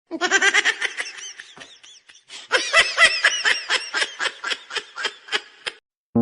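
High-pitched laughter in rapid pulses, about five or six a second, in two bouts, the second fading out near the end.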